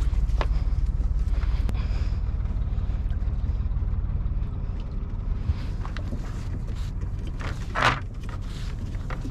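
Sailboat's auxiliary engine running at low speed, a steady low drone that eases off slightly about halfway through. Near the end comes one short rushing swish.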